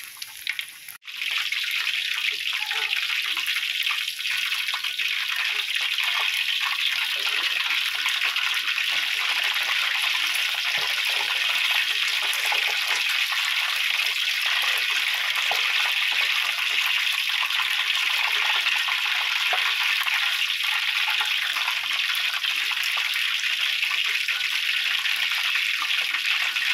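Flour-coated chicken pieces deep-frying in hot oil in a wok: a steady, dense sizzle with a momentary break about a second in.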